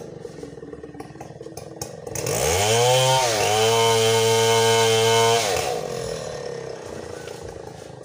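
Chainsaw revved up about two seconds in, dipping briefly, then held at high revs for about two seconds before being let back down to a low idle.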